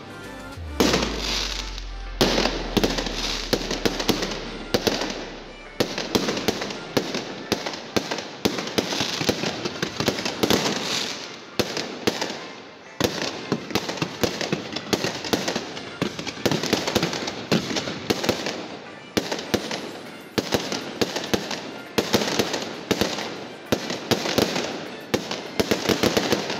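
Fireworks going off: a dense, continuous run of crackles and bangs from ground fountains and aerial shells, with louder reports every second or two.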